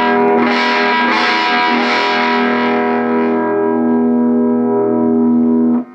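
Red Les Paul electric guitar played through a Mojotone 5F1 Champ kit amp, a single-ended 6V6GT tube amp with an 8-inch speaker, with its volume at about 6: a few strummed chords, then one chord left to ring for about three seconds before it is muted suddenly near the end.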